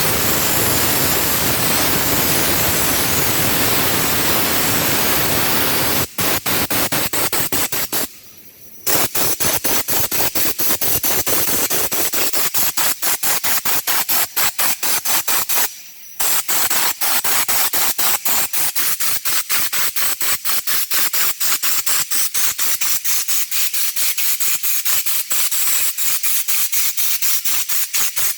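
Compressed-air undercoating spray gun hissing as anti-rust coating is sprayed onto a car's underbody. It runs continuously for about six seconds, then sputters in rapid short bursts, several a second, and stops briefly twice.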